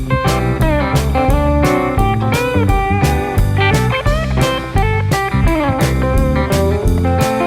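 Background music: a blues-style guitar tune with bending, sliding notes over a steady beat.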